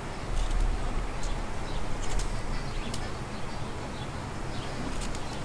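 Thin wooden skewer poking through cubes of squash, several faint scattered clicks as it pierces the outer layer that soaking in ash water has hardened, with a couple of low bumps.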